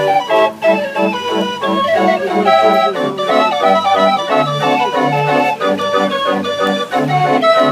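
30-keyless Dean fairground organ playing a tune, with a steady, regular beat of alternating bass notes and chords under the melody.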